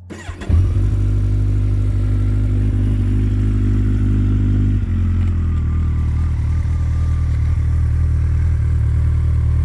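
2012 Kawasaki Ninja ZX-14R's 1441 cc inline-four idling steadily through a Two Brothers Racing Black Series M2 dual exhaust.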